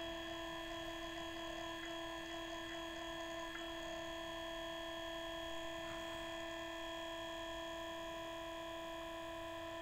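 Small electric pump of a Boyle's law apparatus running with a steady hum made of several fixed tones, as it pushes fluid into the test chamber.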